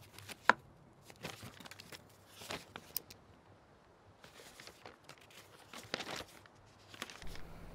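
Paper rustling in short, scattered bursts as the pages of a contract are handled and turned, with a sharp tick about half a second in.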